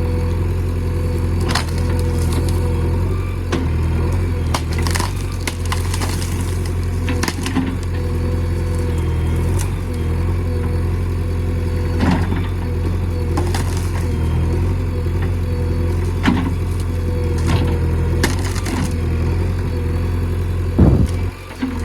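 A JCB 3DX backhoe loader's diesel engine running steadily, with scattered sharp cracks and knocks.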